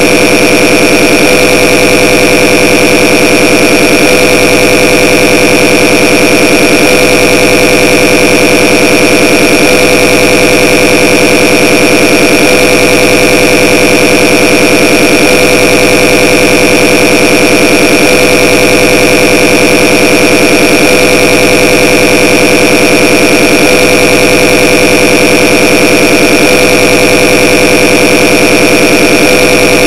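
A very loud, harsh, unchanging drone made of many steady tones layered together, with a strong middle tone and a piercing high one. It is played as a deliberately annoying noise.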